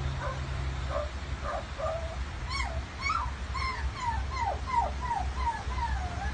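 Australian magpie mimicking a dog's whining at a door: a few short yelping notes, then a run of about eight short falling whines.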